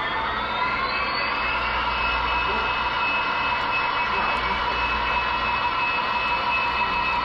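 Model train running on the layout, with a steady whine that rises in pitch over the first second or so and then holds.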